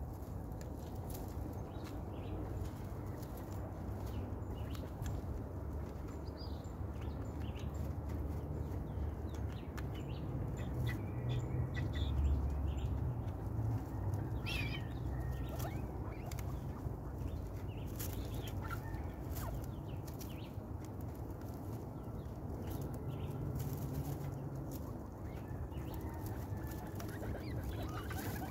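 Young guinea pigs rustling through hay and eating pellets, with many small clicks and crackles and a few short, faint calls.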